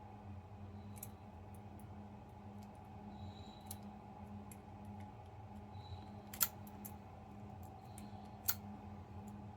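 Light metallic clicks and scratches of a lock pick setting pins inside a BunkerHill Security 50mm padlock during single-pin picking, with two sharper clicks about six and a half and eight and a half seconds in.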